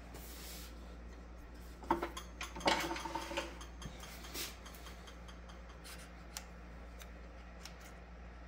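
A steel rule clinking and clattering with a brief metallic ring as it is set down on the lathe's cast-iron tool rest, followed by a few light clicks of handling. A low steady hum runs underneath.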